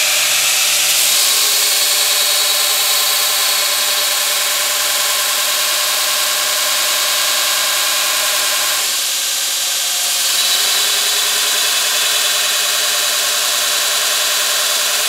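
Belt grinder running with a steel bar pressed against the belt, a steady grinding hiss with a machine whine underneath, the note shifting about nine seconds in. This is a spark test of a bar said to be A11 tool steel, a cutter head from a paper-cutting machine.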